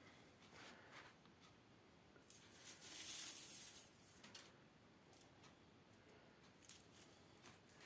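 Dry rustling and scratching as cats paw at a dried grass spikelet, with one longer, stronger rustle about two to four seconds in and scattered short scratches after.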